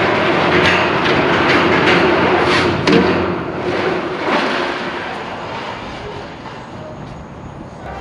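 A large air compressor being moved on a ramp: rumbling and scraping with scattered knocks and clanks, easing off after about four seconds.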